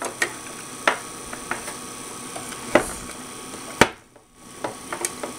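Sharp clicks and knocks of the inverter's end plate and aluminium case being handled and fitted together. There are a handful of clicks, and the loudest comes nearly four seconds in.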